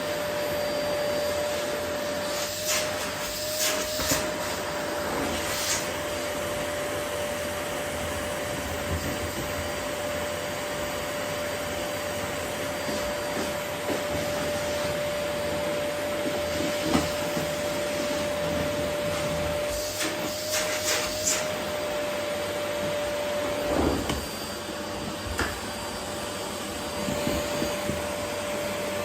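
Vacuum cleaner running steadily with a constant motor hum, vacuuming up rose petals, with brief rattles a few times as things are drawn into the nozzle.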